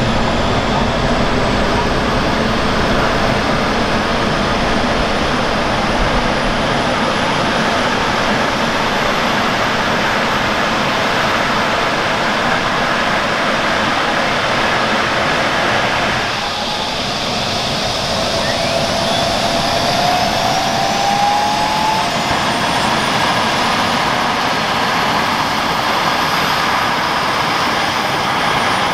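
Airbus H135 P3 helicopter running on the ground with its rotor turning: the steady, loud noise of its twin Pratt & Whitney PW206B3 turboshaft engines and rotor, with a high turbine whine slowly rising in pitch.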